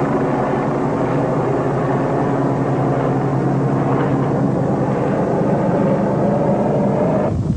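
A steady engine drone, a constant low hum over a rumbling haze, that cuts off suddenly near the end.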